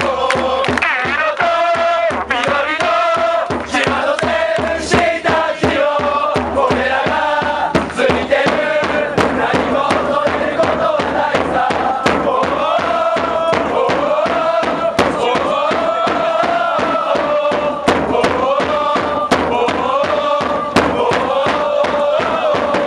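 Football supporters singing a repeated chant together, backed by a steady drumbeat.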